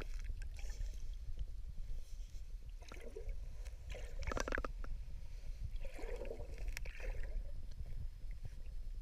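Low, steady underwater rumble of river current picked up by a camera in its waterproof housing. A few faint, muffled sounds come through midway, one of them briefly pitched about four and a half seconds in.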